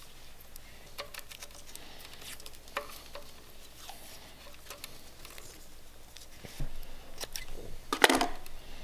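Close handling of a wiring harness: scattered small clicks and rustles of corrugated plastic split wire loom being worked over bundled wires. Near the end, louder rasps of black vinyl electrical tape being pulled off the roll and wrapped around the loom, the loudest about a second before the end.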